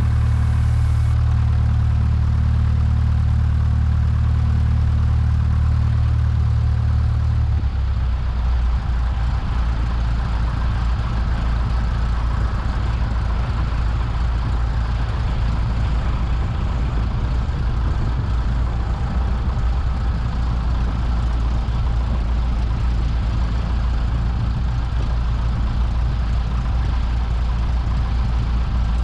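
Cessna 172SP's four-cylinder Lycoming engine running at low taxi power, a steady low drone. About seven seconds in, its steady tones give way to a rougher, more uneven rumble.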